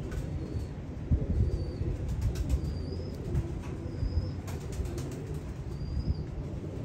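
Domestic pigeons cooing in a low continuous rumble, with about five short high chirps spread through it and a few light clicks.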